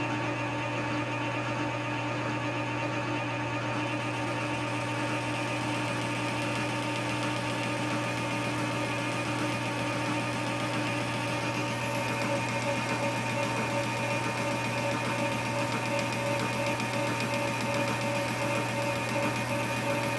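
Cisco metal lathe running under power feed, its high-speed steel boring bar taking a cut inside the drive sprocket's bore, an interrupted cut across the old keyway. A steady mechanical hum and whine with several steady tones, growing a little louder and brighter about twelve seconds in.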